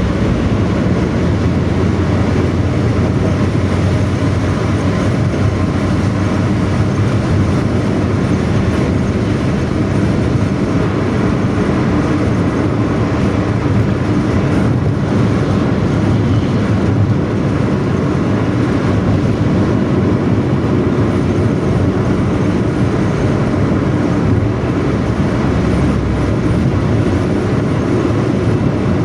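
Bus engine pulling along with a 'ngorok' exhaust, a snoring, growling note, heard as a loud, steady low rumble.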